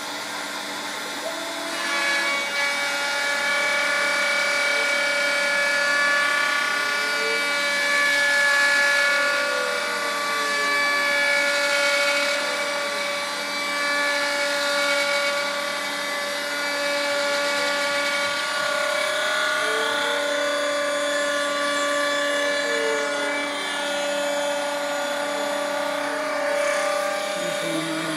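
Small variable-speed laminate router on a homemade CNC machine running at a steady high whine while cutting into a pine board, the cutting noise growing about two seconds in. Under it, the stepper motors' pitch glides up and down over and over as the axes speed up and slow down.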